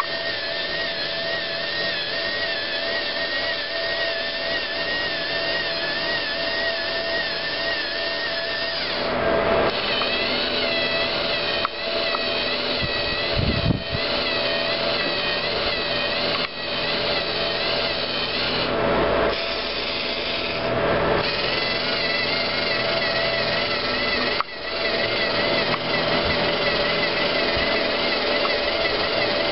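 LEGO NXT servo motors of a robotic arm whining through their plastic gears. The whine wavers in pitch and changes or briefly breaks off every few seconds as the motors start, stop and change direction while the arm positions itself and grips a chess piece.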